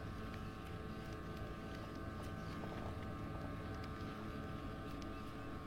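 Steady low hum of a boat motor running, with a few faint scattered ticks.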